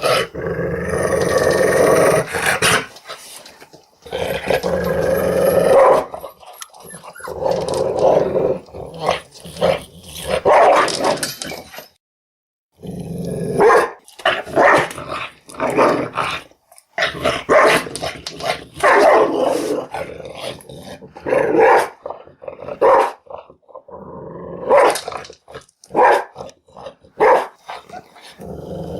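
Angry dog growling and barking: long drawn-out growls in the first half, then a run of short barks in quick groups, with a brief total break about twelve seconds in.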